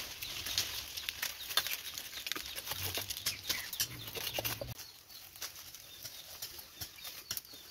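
Dry coconut palm fibre and frond bases rustling and crackling as they are pulled and torn away by hand: a fast, irregular run of crackles.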